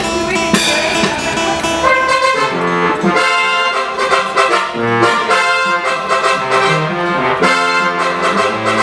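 Brass instruments, a live band's horn section, playing a phrase of held notes that step up and down, during a sound check. The first two seconds are busier, with sharp struck or strummed sounds under the notes.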